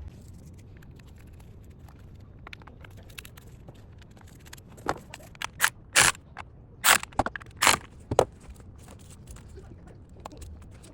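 A run of sharp, irregular clicks and knocks from hand tools working on the engine, bunched together in the middle, as the water pump pulley bolts and belt are tightened up.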